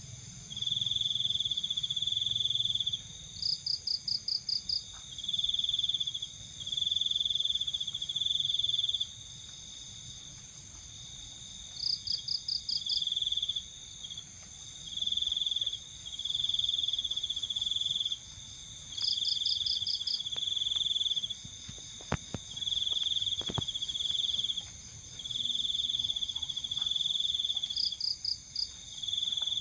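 Crickets and other night insects trilling in overlapping bouts of one to two seconds, with a faster pulsing trill recurring every seven or eight seconds. Two faint clicks come past the middle.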